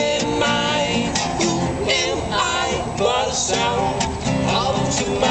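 Live music from the band: guitar playing with singing voices.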